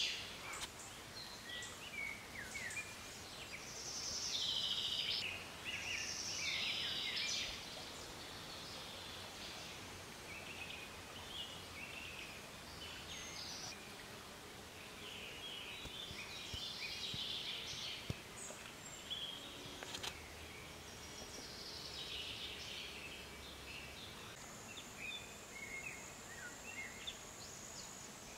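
Woodland birds singing, in repeated short bursts of chirps and warbles over a faint outdoor background, with a thin steady high-pitched tone joining near the end.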